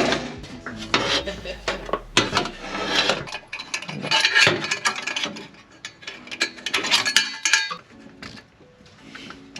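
Metal hand tools clinking and clattering against steel exhaust parts in irregular clusters, as the exhaust pipes and their bolts and clamps are fitted and tightened.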